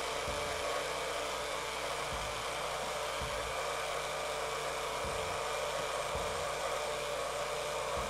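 Electric blender motor running steadily at one even pitch, puréeing cooked broccoli and its cooking water into soup.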